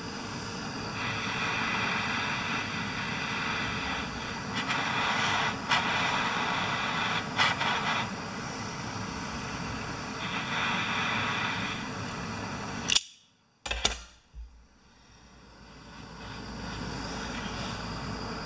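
A steady hiss swells up in three stretches of a few seconds each, with a few sharp clicks. It cuts off sharply about two-thirds of the way through, and a steady background noise fades back up.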